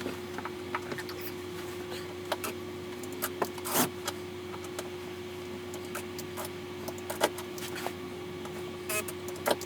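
Scattered light clicks and rattles of tools and small parts being handled, over a steady faint hum.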